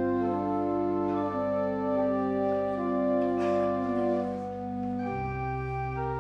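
Church organ playing slow, sustained chords, with the bass note changing about five seconds in.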